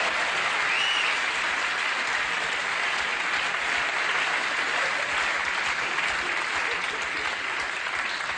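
Live audience applauding, a steady clapping that eases slightly toward the end.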